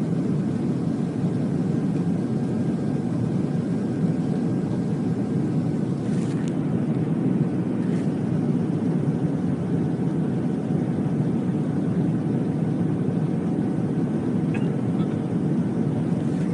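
Steady low roar of a jet airliner's cabin during the climb after takeoff: engine and airflow noise heard from a window seat, with two faint clicks about six and eight seconds in.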